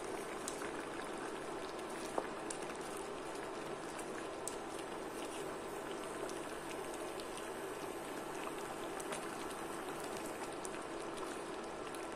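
Curry simmering in a pan, a steady bubbling with many small pops and ticks, as a wooden spoon stirs through the meat and potatoes; one sharper knock comes about two seconds in.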